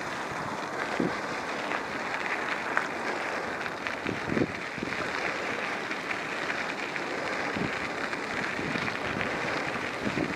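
Steady rushing wind noise on the microphone of a camera riding on a moving mountain bike, with a few faint knocks.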